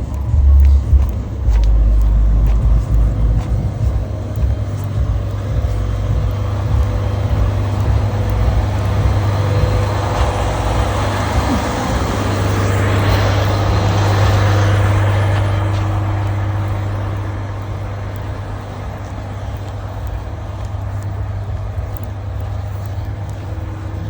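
A car's steady low engine rumble and road noise, swelling for a few seconds in the middle.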